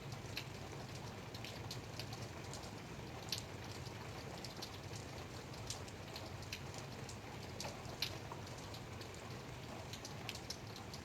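Light rain falling: a steady patter with individual drops ticking sharply and irregularly on a hard surface, a few of them louder than the rest.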